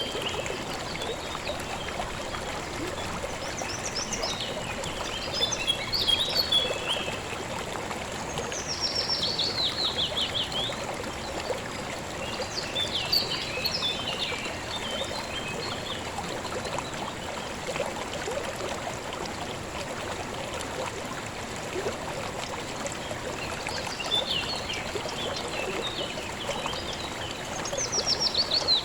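River water flowing steadily, with songbirds singing over it in several short phrases, among them a fast falling trill about eight seconds in and another near the end.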